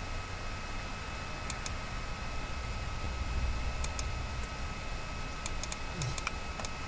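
Computer mouse and keyboard clicks, about ten short sharp clicks in small groups, over a faint steady hum.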